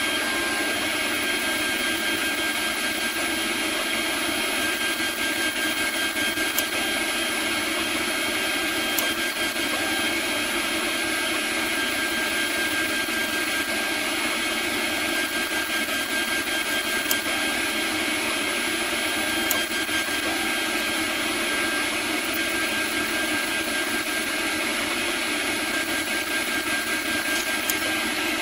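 CNC router spindle running with a steady high whine while its end mill cuts Delrin, with the hiss of cutting under it and a few faint ticks.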